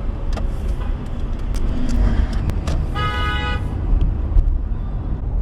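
A car horn honks once, briefly, about three seconds in, over the low rumble of idling traffic.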